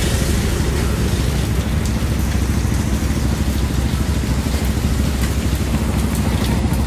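The single main engine of a wooden fishing carrier vessel running steadily with a deep drone, its propeller wash churning the water into a constant rushing hiss.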